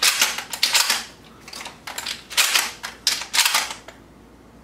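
Dummy shotgun shells being pushed quickly into a shotgun's tube magazine: a rapid run of about six sharp clicking, scraping strokes as each shell slides past the loading gate. The strokes stop about four seconds in.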